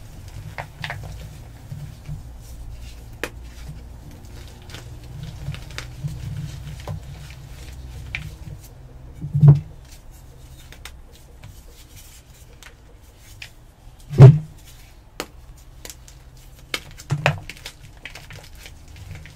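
White chalk blocks crushed and crumbled by gloved hands over a bowl of water, giving a steady crackle of breaking chalk and crumbs pattering into the water. There are three louder thuds, about halfway, two-thirds of the way and near the end.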